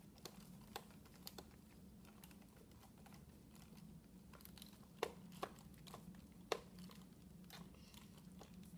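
Faint, scattered clicks and taps of a plastic Nerf blaster being handled, over a low steady hum.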